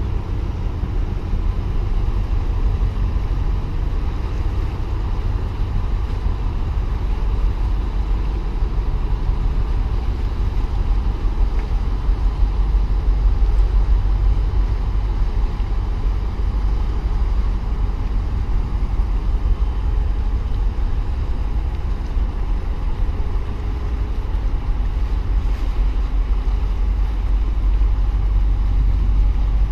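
Steady low rumble of wind buffeting the microphone, with a faint even hum from a large container ship passing close by.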